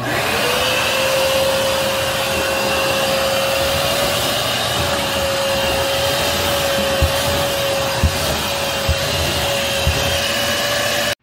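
Canister wet vacuum cleaner switched on, its motor spinning up within half a second to a steady whine and running loud. A few light knocks come in the second half, and the sound cuts off abruptly at the end.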